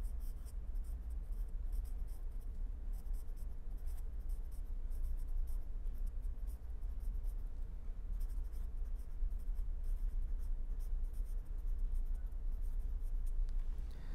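Marker pen writing on paper: runs of short scratchy strokes as a line of words is written out, the strokes stopping shortly before the end. A steady low hum runs underneath.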